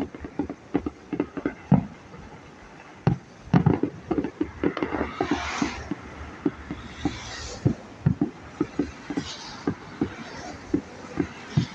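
Fireworks going off: an irregular, rapid run of sharp pops and bangs, with several hissing, crackling bursts about five, seven and nine seconds in.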